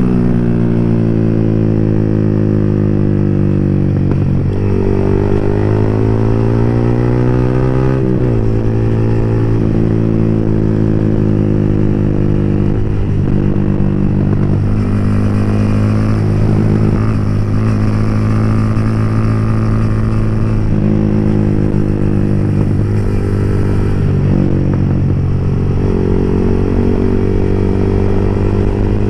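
Yamaha R15 V3's single-cylinder engine with an open exhaust pipe, heard while riding. It climbs in pitch for a few seconds, drops sharply at about eight seconds in as it shifts up a gear, then runs at a steady cruise.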